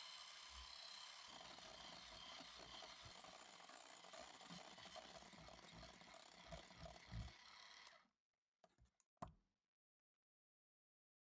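Electric hand mixer running with its beaters whipping heavy cream and sugar in a glass bowl, a steady whirr with a few low knocks. It stops about eight seconds in, and a few light knocks follow.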